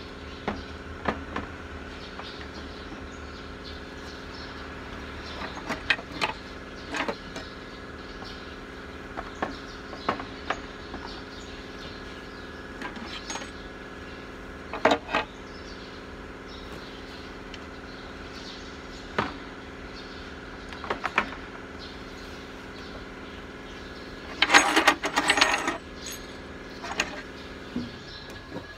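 Hand tools clinking against the metal of a Nissan GE13 diesel engine's cylinder head during injector removal: scattered sharp metallic clinks every few seconds, with a quick rattling run of clicks near the end. A steady mechanical hum runs underneath.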